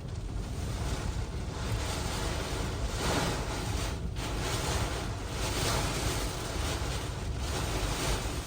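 Hurricane winds gusting: a dense rushing noise that keeps swelling and easing, with short lulls between gusts.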